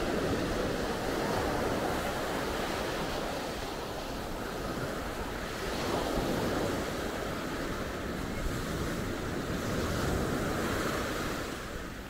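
Small surf breaking and washing up on a sandy beach, a steady wash that swells louder as each wave comes in, with wind rumbling on the microphone.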